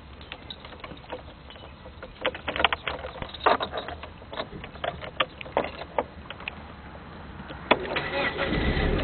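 A string of sharp clicks and knocks, then near the end one sharp click and a car engine starts and keeps running steadily.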